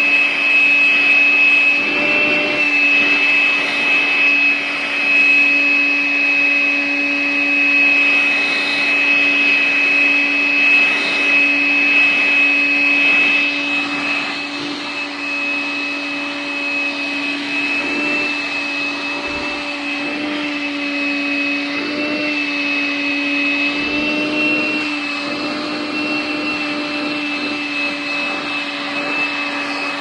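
Vacuum cleaner running steadily, its wand nozzle being drawn over a cat's fur, with a steady whine over the rush of suction. The pitch shifts slightly now and then, and the sound gets a little quieter from about halfway.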